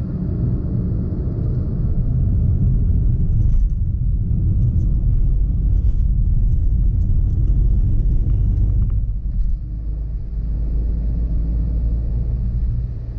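Steady low rumble of road and wind noise from a moving vehicle, heard on board, easing slightly about ten seconds in.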